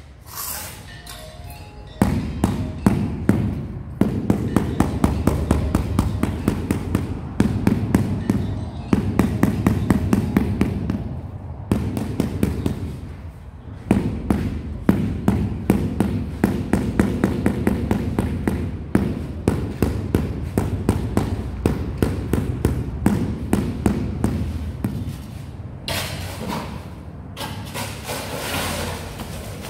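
Rapid, steady tapping on a large porcelain floor tile to bed it into the sand-cement mortar, a run of dull knocks several a second, broken by short pauses and lighter near the end.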